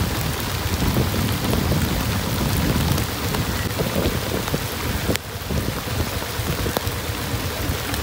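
Heavy rain pouring down in a steady hiss with fine pattering drops, over a low rumble. The sound drops a little about five seconds in.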